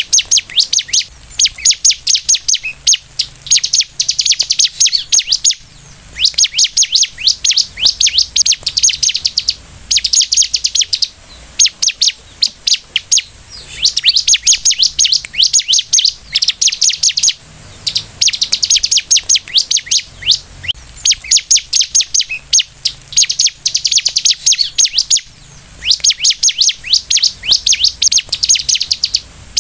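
Bar-winged prinia (ciblek) singing: runs of rapid, high, clipped notes in bursts of a few seconds, with short pauses between.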